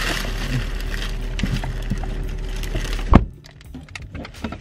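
Small clicks and handling knocks inside a car over a steady low hum, then one loud sharp knock about three seconds in, after which the hum cuts away abruptly.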